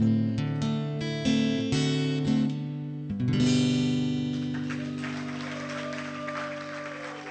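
Acoustic guitar playing the closing chords of a song. The last strum, about three seconds in, is left to ring and fade. Audience applause comes in about four and a half seconds in.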